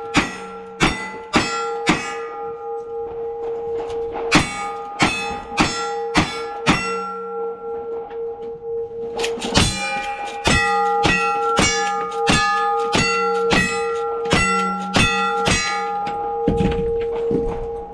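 Gunshots at steel targets, each hit leaving the plates ringing with clear bell-like tones that carry on between shots. Five shots, a pause, five more about four seconds in, then a faster string of about a dozen from about ten seconds in.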